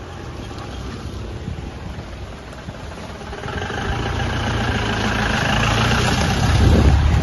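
Vehicle engines running in slow traffic on a wet road, growing steadily louder as a vehicle passes close by. The loudest moment comes near the end.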